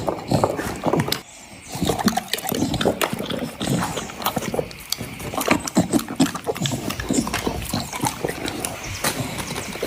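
A dog making a run of short, irregular noises mixed with clicks, broken by a brief lull a little over a second in.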